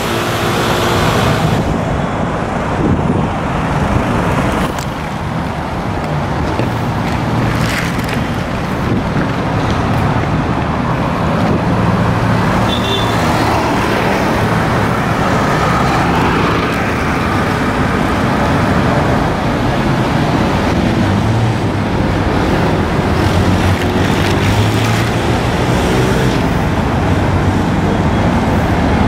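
Steady street traffic: car and auto-rickshaw engines running and driving past on a busy city road.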